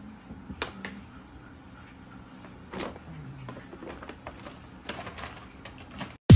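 Scattered light clicks, knocks and rustles of gift packaging and a boxed item being handled, over quiet room tone. Loud electronic dance music cuts in abruptly at the very end.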